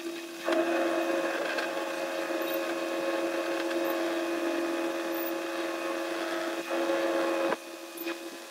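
Heavy truck engine running steadily, a constant hum with a few held tones and no deep rumble. It drops sharply in level about seven and a half seconds in.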